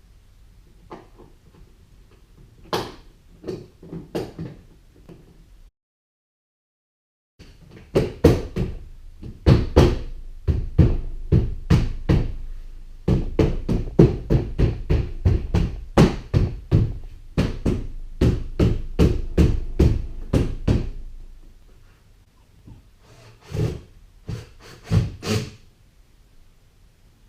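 Hand striking a 7th-generation Honda Accord rear door trim panel to snap its plastic retaining clips into the door: a run of sharp knocks, about two a second, with a few scattered knocks before and after. The sound drops out completely for about a second and a half some six seconds in.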